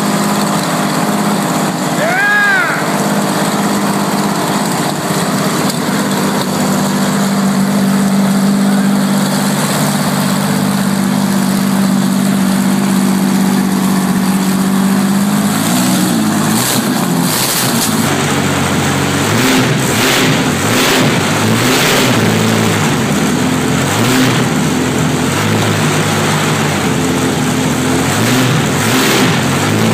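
Rolls-Royce Meteor V12 tank engine running on a test stand. For about the first half it runs steadily. From about halfway it turns rougher and uneven, with repeated sharp cracks.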